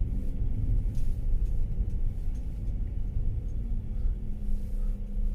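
Steady low road rumble and engine hum of a rear-wheel-drive van driving on a mountain highway.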